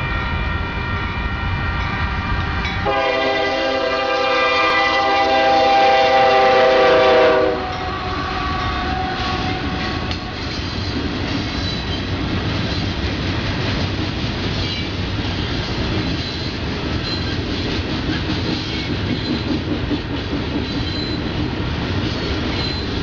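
Union Pacific diesel freight locomotive sounding its horn in one loud blast from about three seconds in, cutting off after about four and a half seconds. Then the rock train's loaded hopper cars roll past with a steady rumble and clickety-clack of wheels on the rails.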